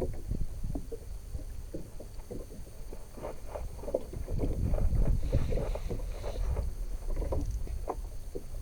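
Water slapping and knocking irregularly against the hull of a small fishing boat over a steady low rumble, with a brief splashy hiss about five seconds in.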